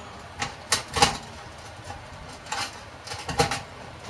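Pizza cutter wheel rolling through a baked pizza's crust and scraping the baking tray, in short strokes. There are about three strokes in the first second and three more after a pause of about a second and a half.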